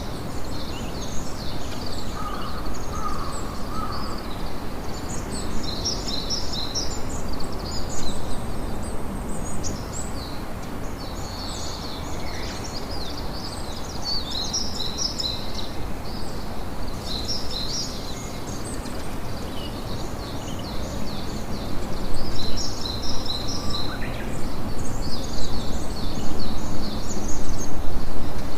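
Campfire crackling steadily under a constant chorus of high chirping calls, a little louder in the last few seconds.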